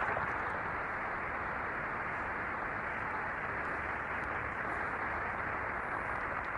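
Prolonged applause from a large audience on an old archival recording: dense clapping that holds steady without letting up.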